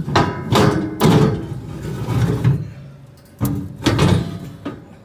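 A run of heavy metal clanks and scrapes from combine concave parts and pins being handled. A cluster of ringing strikes comes in the first second, then two more about three and a half seconds in.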